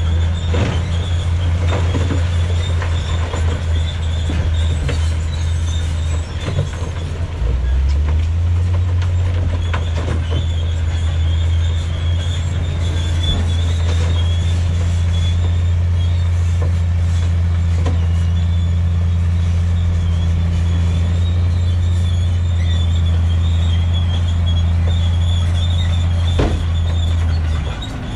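Diesel engines of dump trucks running at raised revs to drive their hydraulic tipping hoists, a deep drone that steps up in pitch about seven seconds in, with a high whine above it. Scattered knocks and clatter of rock sliding off the raised beds.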